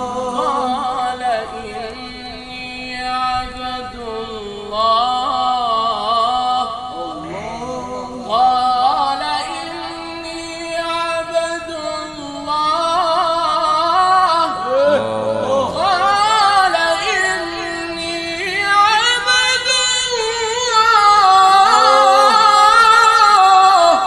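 A man reciting the Quran in the melodic tajwid style, solo and unaccompanied, drawing out long held notes with wavering melismatic ornaments. The voice climbs higher and grows louder over the last few seconds.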